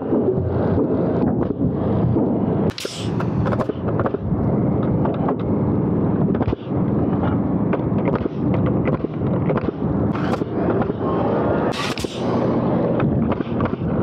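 Pneumatic framing nailer firing nails into curved wooden framing: sharp shots, the loudest about 3 seconds and 12 seconds in, over a steady loud background noise.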